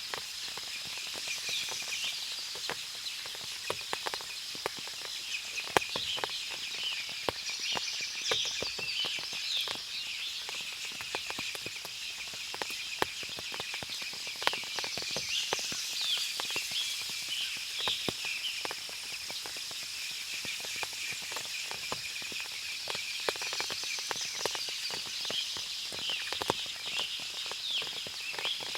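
Forest ambience after rain: birds chirping in bouts over a steady high-pitched hiss, with frequent small clicks of water dripping.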